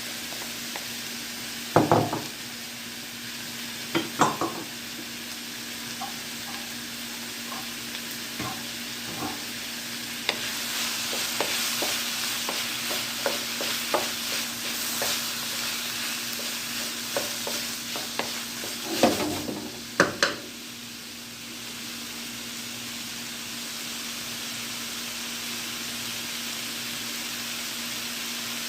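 Sausage and vegetables sizzling in hot oil in a pot as they are stirred, with a utensil knocking against the pot now and then. There are a few loud knocks near the start and two more about two-thirds of the way through. The sizzle is loudest in the middle stretch.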